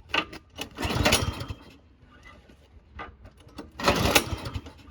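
Snowblower engine being pull-started on choke: the recoil cord is yanked twice, about a second in and again near the end, and the engine turns over with a rattling churn but does not catch. It fails to start after only three primes.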